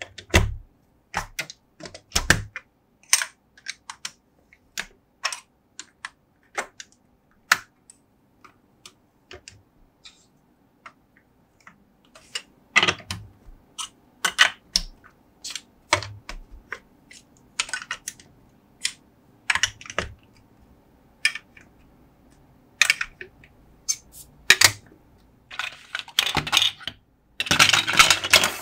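Large plastic building blocks being handled and pressed together: a run of separate sharp plastic clicks and taps, one every second or so. Near the end there is a denser clattering of loose blocks being picked through in a pile.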